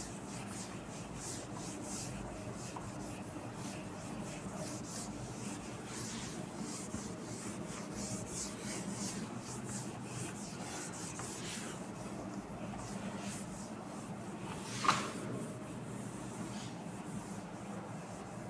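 Whiteboard eraser rubbing across a whiteboard in repeated back-and-forth strokes, wiping off marker writing; faint, with one sharper knock about three-quarters of the way through.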